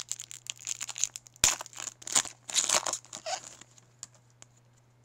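Foil wrapper of a Topps Chrome baseball card pack being torn open and crinkled in a run of crackly bursts, with one sharp snap about a second and a half in; it stops after about three and a half seconds.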